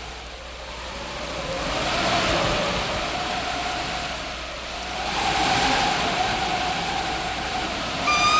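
Recorded wind sound effect rushing and swelling twice, with a faint wavering whistle under it, as the intro to a music track. Near the end a flute enters on one long held note.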